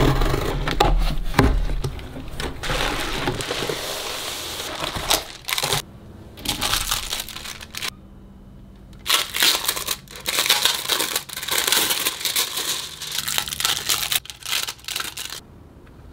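Packaging being opened by hand: a cardboard box's tear strip ripped open, then plastic wrapping crinkling in bursts, with a short pause about eight seconds in.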